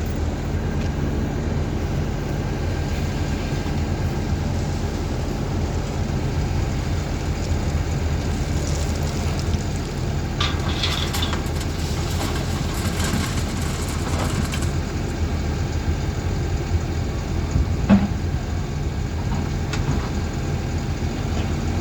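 Diesel engine of a heavy construction machine running steadily, with a few seconds of higher-pitched rattling noise midway and a single sharp knock near the end.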